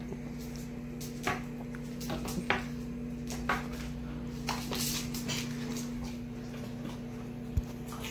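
A kitchen appliance hums steadily and evenly throughout. Scattered short knocks and rustles come from the camera being handled and moved about.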